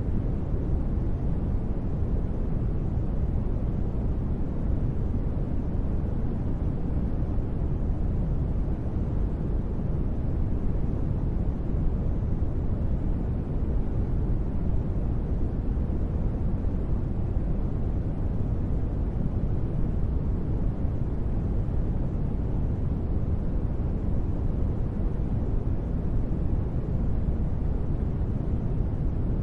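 Steady synthetic ambient noise, deep and muffled, with most of its weight in the low bass and little hiss on top, holding an even level without change: the constant noise bed of a space-ambience track.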